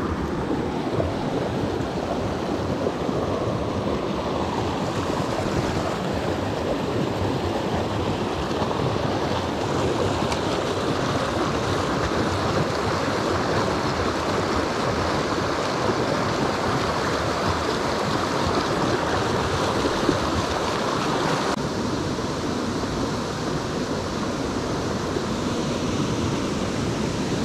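Small mountain creek rushing steadily over rocks, a continuous water noise that turns a little duller near the end.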